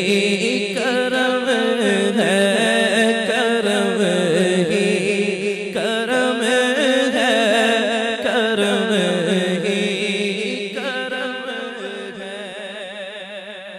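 A man singing a naat into a microphone, holding long, ornamented notes with a wavering pitch over a steady low drone. The singing fades away over the last few seconds.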